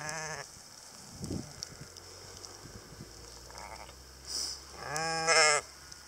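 Sheep bleating: a short bleat right at the start and a louder, longer, wavering bleat near the end, with a faint shorter call in between. The hungry flock is calling for feed.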